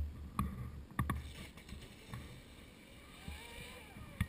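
Proboat Impulse 31's brushless electric motor whining faintly as the RC boat runs at speed on a 6S battery. Its pitch rises and falls about three seconds in, under several low thumps on the microphone.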